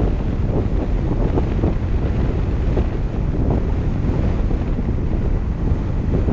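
Wind buffeting the microphone of a camera mounted on the hood of a moving car: a steady low rumbling rush.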